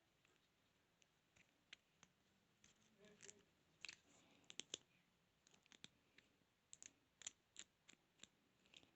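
Faint, irregular clicks and light scrapes of a lock pick probing the pin stack inside a padlock, feeling for the pins, with no tension wrench applied.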